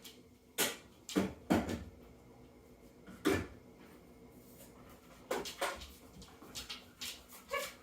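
Several sharp knocks and clatters, spaced irregularly: one under a second in, a pair at about one and a half seconds, one at about three seconds, and a quick cluster after five seconds.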